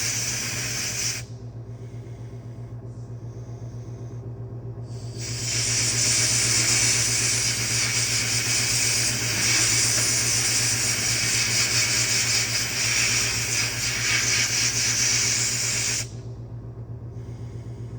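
Loud, steady hissing in two stretches: a short one that stops about a second in, and a long one of about ten seconds that starts about five seconds in. A steady low hum runs underneath.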